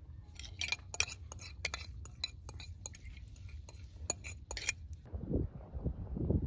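Dishes and utensils clinking and clattering as they are handled, in a quick irregular run of sharp ringing clinks. Near the end the clinks stop and a denser, rougher sound begins.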